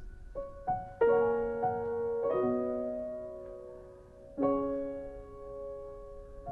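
Slow, soft piano music: single notes and chords struck and left to ring out, with the strongest chords about a second in and again a little past four seconds.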